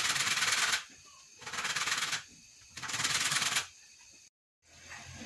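A lemon rubbed back and forth on a white plastic grater, zesting off only the yellow peel: three rasping bouts of quick strokes, each about a second long, with short pauses between.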